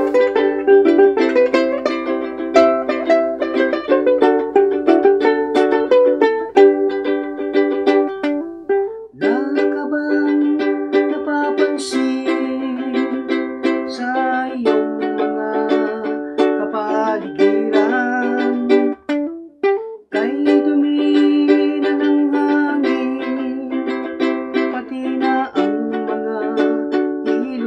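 Ukulele strummed in rhythm through the chords G, C and D, with a voice singing along.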